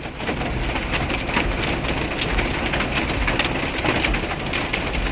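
Hail and heavy rain pelting a semi truck: a dense, steady clatter of countless small hits. It grows louder a fraction of a second in.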